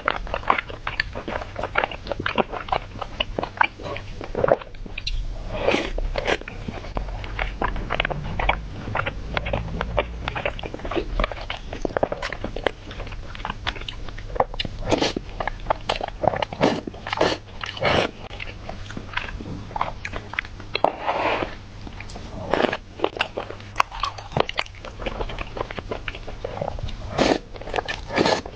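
Close-miked eating: irregular bites, smacks and chewing of food, with occasional crunches, going on throughout.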